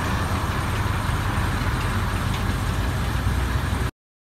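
Steady low rumble with an even hiss over it, outdoor ambient noise that cuts off suddenly near the end.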